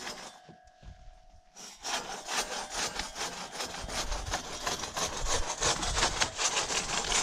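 Crosscut saw cutting through a large downed log, rasping back and forth in a steady rhythm, starting about two seconds in after a brief quiet.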